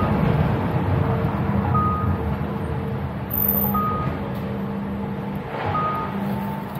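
Three short, high warning beeps about two seconds apart, like a vehicle reversing alarm or deck warning beeper, over the steady low rumble and hum of a ferry's enclosed car deck.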